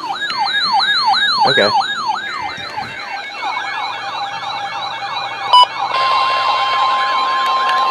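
Electronic emergency sirens in a fast, repeating yelp, with a second siren overlapping from about three seconds in. Under them are the short data bursts of a NOAA Weather Radio SAME alert header, and about six seconds in the radio's steady 1050 Hz warning alarm tone starts, announcing the next warning.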